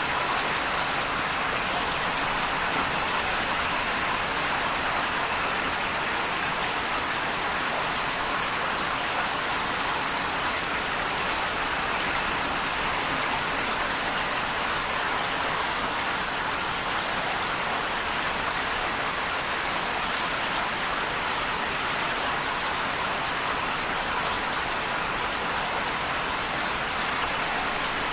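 Steady rain falling, an even hiss of many drops that holds the same level throughout.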